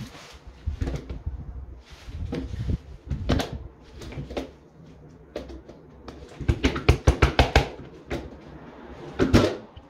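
Sharp plastic clicks and knocks from a white double socket faceplate being pressed onto its wall box and fastened with a screwdriver. A quick run of about eight clicks a second comes about two-thirds of the way through, and a louder knock comes near the end.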